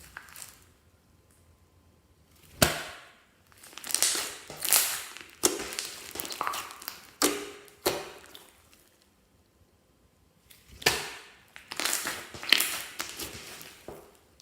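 Clear slime being squeezed and worked by hand, giving bursts of wet crackling clicks and pops. The bursts come in two clusters with a quiet pause between them.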